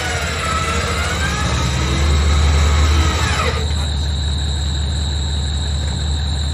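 Bushranger REVO 12,000 lb electric winch reeling in its synthetic rope under heavy load, pulling the bellied-out Land Cruiser forward: a wavering, squealing whine that slides up and down in pitch, stopping about three and a half seconds in. The vehicle's engine runs steadily underneath, and a steady high tone carries on after the winch stops.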